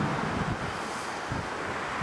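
Wind buffeting the microphone: a steady rushing with a few low thumps from gusts.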